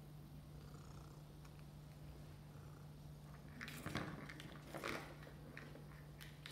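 A cat batting a small plastic toy mouse on a hardwood floor: two short clusters of taps and clatters about four and five seconds in, then a couple of single taps. A steady low hum runs underneath.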